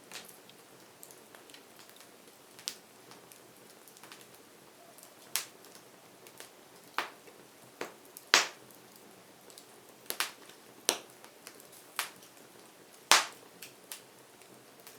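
Wood fire crackling: irregular sharp pops and snaps over a soft hiss, with the loudest pops about eight and thirteen seconds in.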